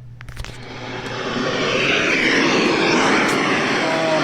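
A few quick button clicks on a weather radio receiver, then a loud, steady hiss of radio static that swells up over about a second and holds.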